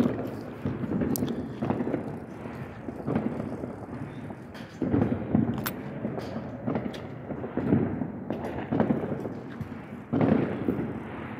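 Muffled thuds and rumbling from a handheld phone being carried while walking, about one thud a second, with a few faint, sharp distant firecracker pops.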